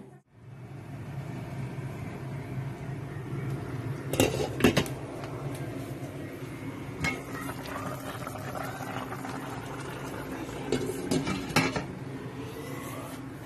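A kitchen appliance hums steadily while kitchenware clatters in sharp knocks: a pair about four seconds in, one near seven seconds, and another pair around eleven seconds.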